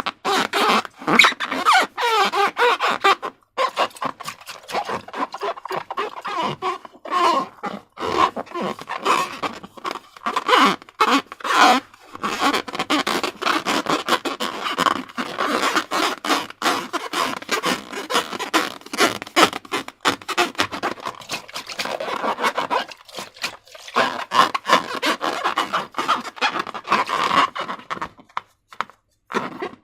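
Slime and rubber balloons being handled: continuous sticky squelching and crackling clicks, mixed with short rubbery squeaks. There is a short pause near the end.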